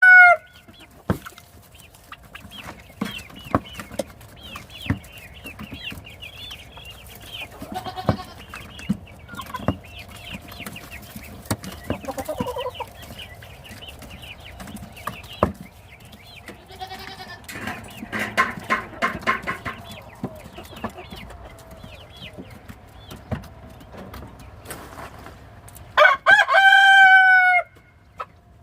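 Chickens clucking and calling, with scattered sharp taps. Near the end a rooster crows loudly once, a long crow of about a second and a half that falls at its close. The end of another crow is heard right at the start.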